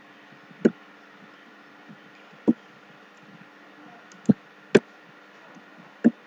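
Five single sharp clicks of a computer mouse and keyboard, a second or two apart, as text is clicked, copied and pasted into a code editor, over a faint steady hum.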